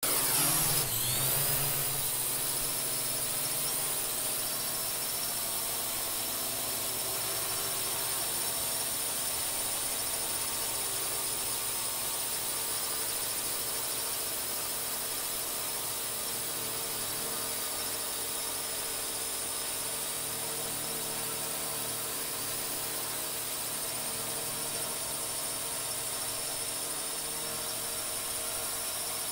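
Multirotor drone's electric motors and propellers whining steadily with a high-pitched hum. The pitch rises over the first second, then holds.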